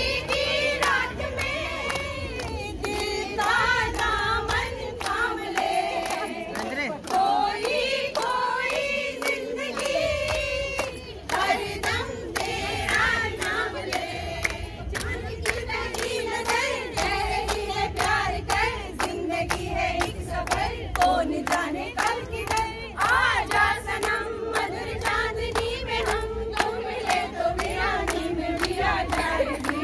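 A group of women singing together, with steady rhythmic hand-clapping.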